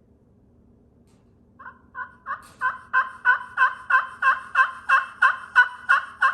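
Vintage slate turkey call played with a striker: a steady run of about fifteen hen-style yelps, roughly three a second, starting soft and quickly growing louder.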